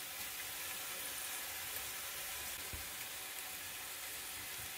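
Faint, steady sizzle of diced vegetables frying in ghee and oil in a steel pan over a low flame.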